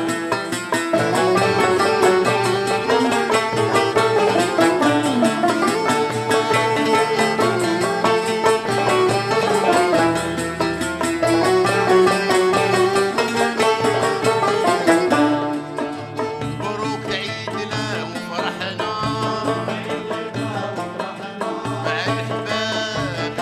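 Algerian chaabi ensemble of banjos, keyboard and hand drums playing a fast, busy instrumental passage. About fifteen seconds in the band drops back and a man's voice begins singing over lighter accompaniment.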